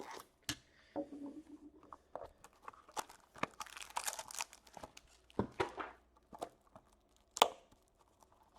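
Hands opening a trading-card box and tearing the pack inside, with crinkling wrapper, rustling and small clicks of cardboard and cards. A longer stretch of tearing and rustling comes about halfway through, and one sharp click about seven seconds in is the loudest sound.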